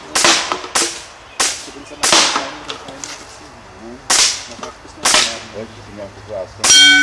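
A CO2 air gun firing about six sharp shots at uneven intervals at plastic water bottles. Near the end a hanging metal gong target is hit and rings on with a steady tone.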